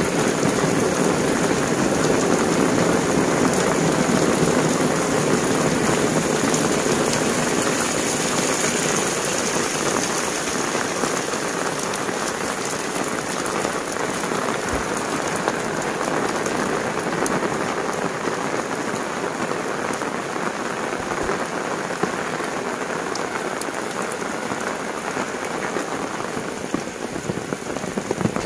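Heavy rain pouring steadily, a dense hiss of countless drops hitting the ground and roofs, easing slightly in the second half.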